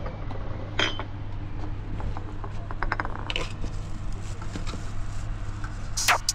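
Scattered light metallic clinks and clatter, like dishes and utensils being handled, over a steady low hum.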